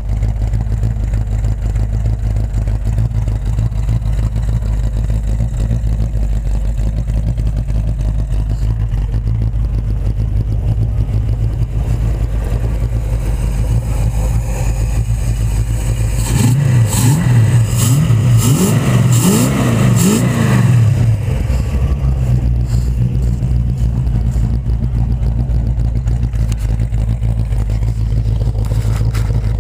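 Small-block Chevy 350 V8, bored .040 over with Vortec heads and a Crane Energizer 282 camshaft, idling steadily through an AP XLerator muffler and dual tips. About 16 seconds in it is revved in about five quick blips over some four seconds, then drops back to idle.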